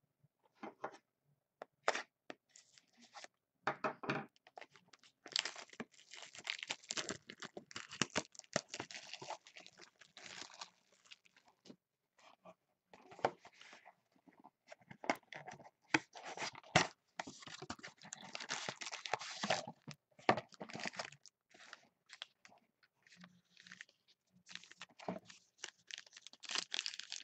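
Trading-card box and its sealed wrappers being torn open and crinkled, with cards handled, in irregular bursts of rustling and small snaps.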